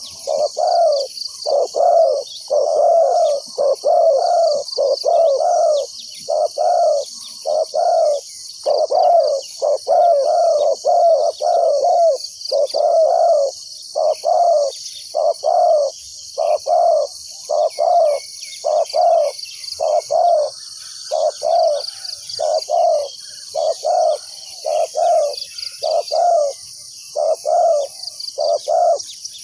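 Spotted doves cooing over and over, low coos in quick runs broken by short pauses, the calling of a decoy dove set out to lure wild doves. A steady high hiss with faint chirps runs behind the coos.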